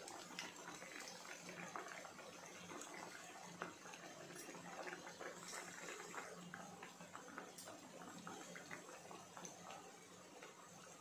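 Dhokla cutlets deep-frying in hot oil, a steady quiet sizzle full of tiny crackling pops, with a few sharper ticks here and there.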